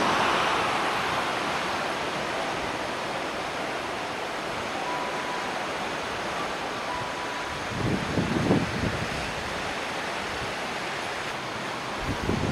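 Ocean surf washing onto the beach as a steady rush of noise. Wind buffets the microphone about eight seconds in and again near the end.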